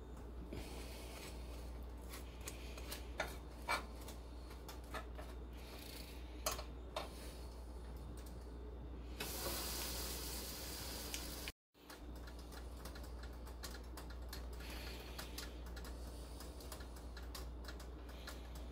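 Butter knife spreading butter on bread rolls and tapping against a grill plate: a faint run of soft scrapes and small clicks over a low steady hum, with a couple of seconds of steady hiss about nine seconds in.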